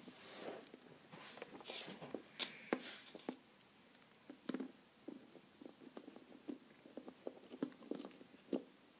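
Close handling noises as fingers fit a small toy halter onto a plastic horse figurine: soft rustling with a few sharp clicks over the first few seconds, then scattered small clicks and taps.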